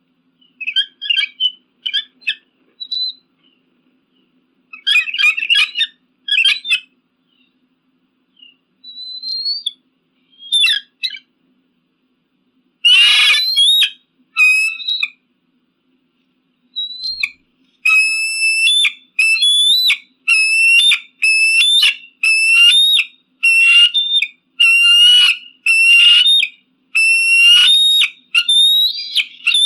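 Eagle calling in high, whistled yelps: scattered calls at first, one louder harsh call near the middle, then a fast, even series of about one and a half notes a second.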